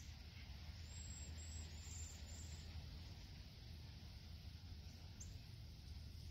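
Faint outdoor wetland ambience: a steady low hum under a soft hiss, with a few brief, very high bird chirps from about a second in.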